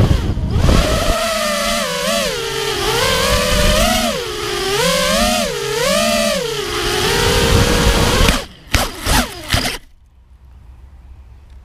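FPV racing quadcopter's four Lumenier RX2206 2350Kv brushless motors spinning 5-inch triblade props, heard from the onboard camera: a loud whine that rises and falls in pitch with the throttle. About eight seconds in it cuts in and out a few times in short bursts, then stops, with the quad resting on the grass.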